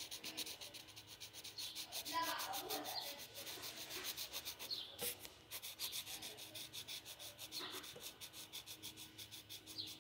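Teal-green coloured pencil scratching on paper in quick back-and-forth shading strokes, about five a second.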